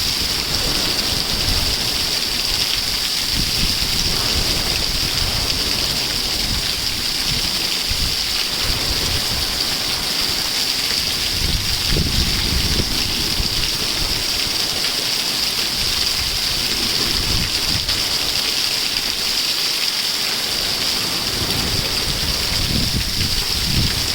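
Waterfall rushing steadily, a constant hiss of falling water, with gusts of wind rumbling on the microphone.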